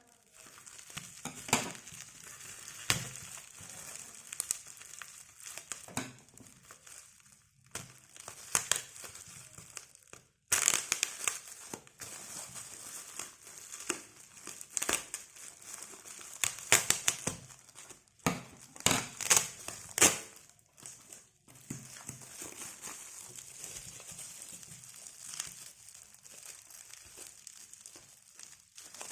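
Packaging crinkling and rustling as it is handled and opened, in irregular crackly bursts, loudest about a third of the way through and again around two-thirds through.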